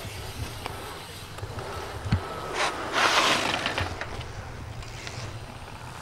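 Dirt-jump bike riding a pump track: a low rumble of tyres rolling on the track, a sharp knock about two seconds in, then a rush of tyre noise lasting about a second.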